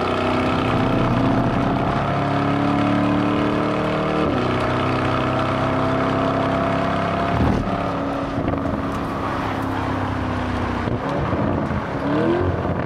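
Lamborghini Urus twin-turbo V8 pulling hard on track, its note climbing slowly and dropping sharply at gear changes about four and seven and a half seconds in, then a quick rising rev near the end.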